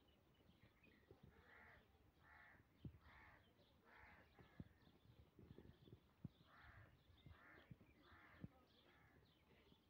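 Crows cawing, a run of short harsh calls about one to two a second, quiet, with a pause in the middle before the calls pick up again. A few soft low knocks fall between them.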